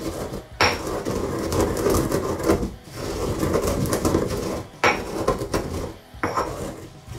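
Pestle pounding and grinding mixed peppercorns and coarse salt in a stone mortar: a continuous gritty crunching with a few sharper knocks of stone on stone.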